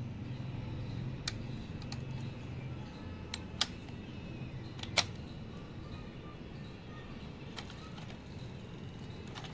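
Scattered small clicks and taps from a hand handling a die-cast metal model bus, about six in all, the sharpest about five seconds in, over a low steady hum.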